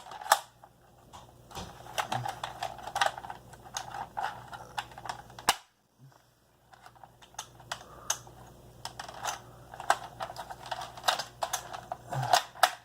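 Irregular light plastic clicks and rattles of a Nerf AccuStrike Alpha Hawk blaster being handled, with a brief cut to silence about halfway through.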